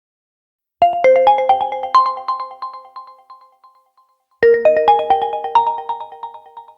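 ColorOS 15 phone ringtone: a short melody of quick, ringing notes starts about a second in, fades out, and repeats once.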